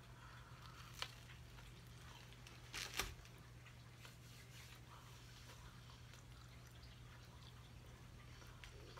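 Near silence: a steady low room hum, with a single click about a second in and a brief burst of noise around three seconds.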